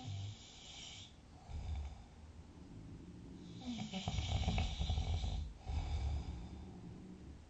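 A person snoring in sleep. A snoring breath fades out about a second in. A louder, longer snore with a low rumble follows from about three and a half to five and a half seconds, then dies away.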